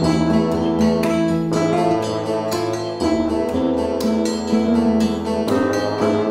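Instrumental background music played on plucked strings, with a string of sharp, evenly spaced note attacks.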